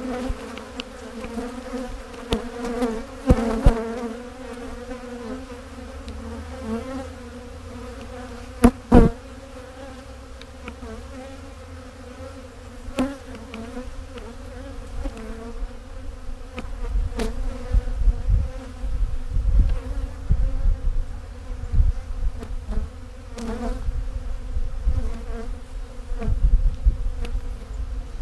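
A honeybee colony buzzing around its opened hive, a steady hum from a very defensive, stirred-up colony. A few sharp knocks cut through, the loudest about nine seconds in, and a low rumble comes in over the second half.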